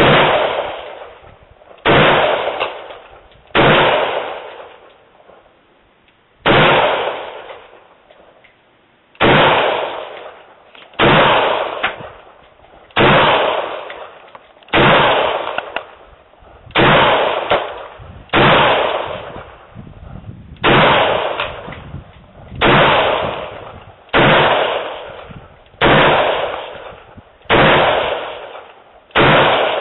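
Semi-automatic rifle fired one shot at a time, about sixteen shots spaced roughly two seconds apart. Each shot has a long echoing tail that dies away before the next.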